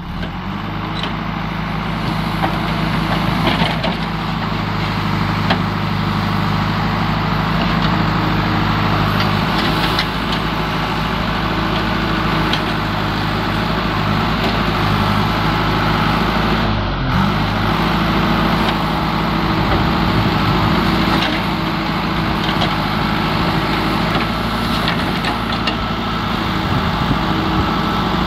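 JCB 3DX backhoe loader's diesel engine running steadily under load as the backhoe arm digs, with a few faint knocks scattered through it.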